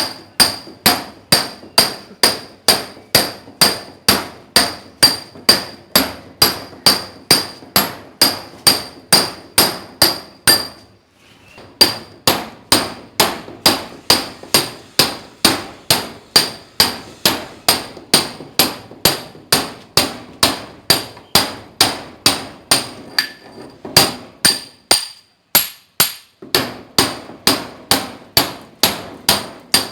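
A mason's hammer striking a steel chisel in a steady rhythm of about two to three blows a second, each blow with a ringing metallic note. The hammering stops for about a second around eleven seconds in, and briefly again near twenty-five seconds.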